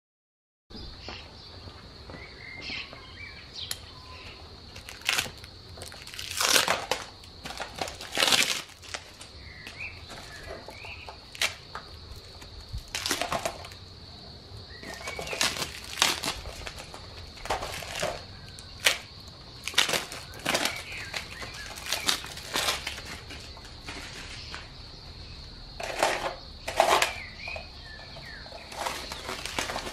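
Plastic wrapping on new motorcycle tyres crinkling and rustling in irregular bursts as the tyres are handled, over a steady high-pitched hiss.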